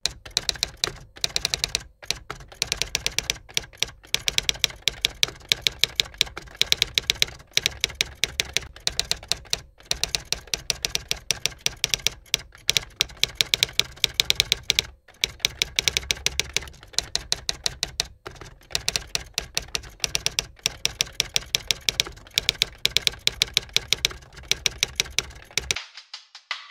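Rapid clicking like typing, in quick runs broken by short pauses, with a low hum underneath that stops about a second before the end.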